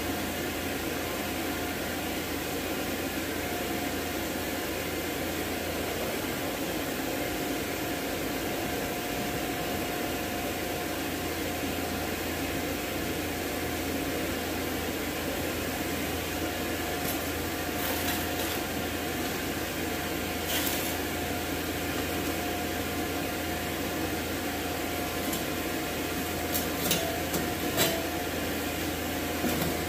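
A steady rushing noise, like a blower or burner running, with a faint steady whine through most of it. A few light clicks and taps come in the second half.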